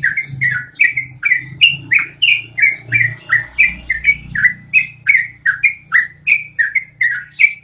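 Yellow-vented bulbul (trucukan) singing a long rolling song: an unbroken run of short, downward-sliding whistled notes, about three a second.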